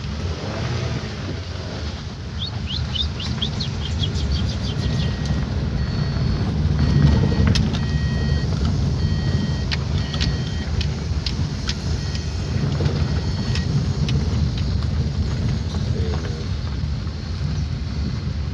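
Car driving on a bumpy dirt road, heard from inside the cabin: a steady low engine and tyre rumble with scattered knocks and rattles. A quick run of high chirps sounds about 2 to 4 seconds in, then short high beeps come on and off through the middle.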